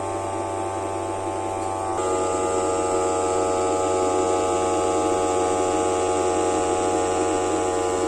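Small electric fan motor in a cardboard air cooler model running steadily, an even whine with a low hum beneath, a little louder about two seconds in.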